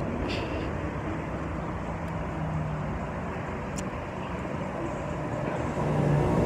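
Steady city street noise: traffic rumbling along the road, heard through a phone held at arm's length while walking on the sidewalk.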